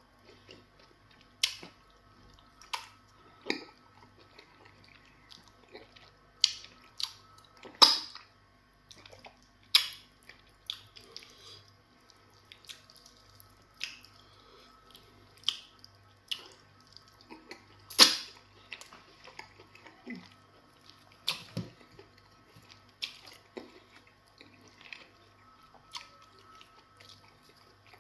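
Close-miked wet eating sounds of semo fufu and spinach soup: chewing and lip-smacking, with fingers squishing in the soup. They come as sharp, irregular smacks every second or two, two of them much louder than the rest.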